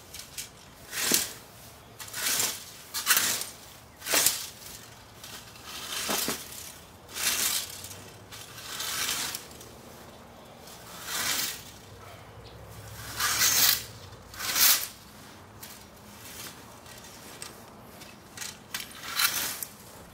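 Sun Joe reel mower's spinning blades cutting tall grass in short pushes: a run of about a dozen brief whirring, snipping bursts, one every second or two.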